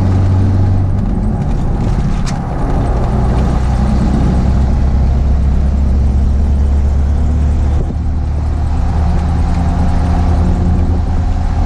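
Ford F-150 pickup on the move, heard from inside the cab: steady engine and mud-terrain tyre noise with a strong low drone. The drone's pitch shifts about a second in and again near eight seconds.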